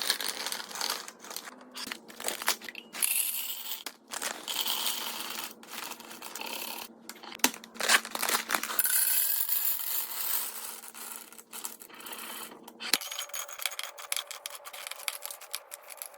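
Hands handling packaged goods while restocking: crinkling and rustling of packaging with scattered small clicks and taps as items are set down and moved.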